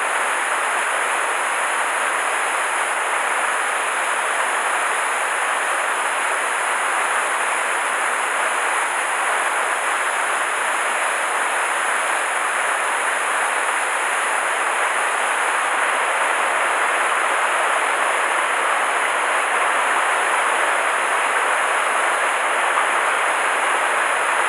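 Mountain stream rushing over boulders and a small cascade: a steady, unbroken rush of water.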